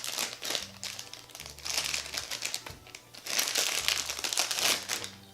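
Plastic blind-bag packaging crinkling in irregular bursts as it is handled and opened, with soft background music underneath.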